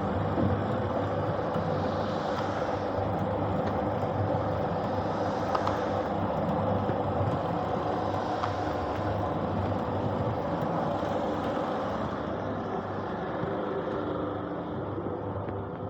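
Paving block press machine running with a steady mechanical hum, swelling about every three seconds, a little quieter near the end.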